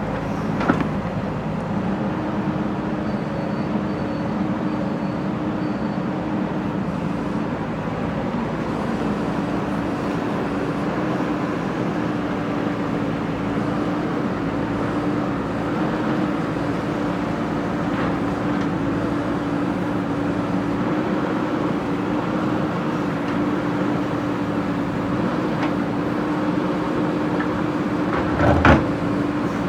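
Diesel engine of a JCB backhoe loader running steadily under work, with a steady hum throughout. A few light knocks come through, and there is a louder clank near the end.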